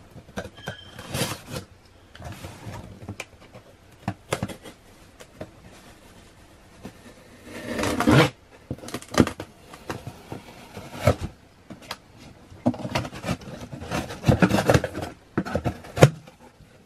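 Cardboard shipping box being cut open with a box cutter and its flaps pulled apart: irregular scraping, rubbing and knocks of blade, tape and cardboard, densest about eight seconds in and again near the end.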